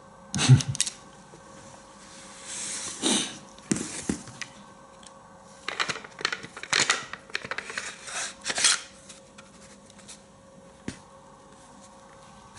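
Sauer 404 bolt-action rifle being handled on a table: a sharp click with a low knock about half a second in, then scattered clicks, taps and rustling as the rifle is lifted and moved, with a cluster of them toward the end.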